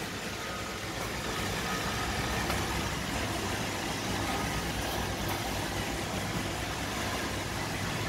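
iRobot Roomba 780 robot vacuum running steadily, its motor whirring as it drives back to seek its charging dock.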